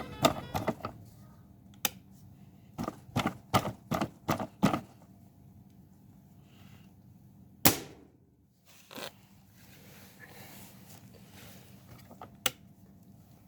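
Sharp mechanical clicks and knocks. A quick run of about seven clicks comes first, then one louder sharp crack with a short ring-out, and a few single clicks after it.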